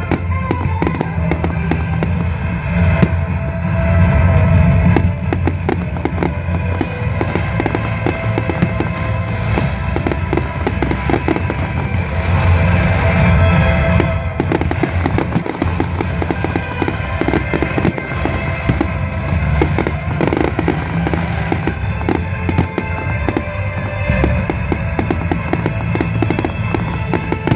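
Fireworks display with a dense run of bangs and crackling bursts throughout, over music playing at the same time.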